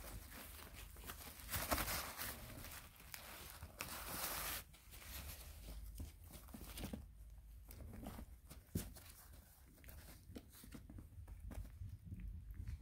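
Crinkling and rustling of a plastic-backed puppy training pad as a small puppy scrambles against it, in two louder bursts about two and four seconds in, then fainter scuffling and small clicks.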